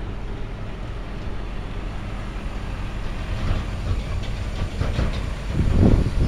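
Heavy diesel machinery running with a low steady rumble and rattle, growing louder about five and a half seconds in.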